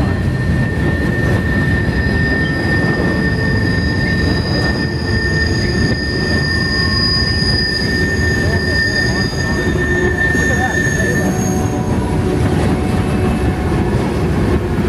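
Freight train cars rolling past close by: a steady, loud rumble of steel wheels on rail, with a thin, high wheel squeal held until about eleven seconds in.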